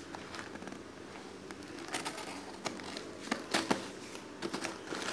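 Brown paper wrapping of a package being cut open with a knife and handled: crinkling paper with irregular sharp crackles, busier from about two seconds in.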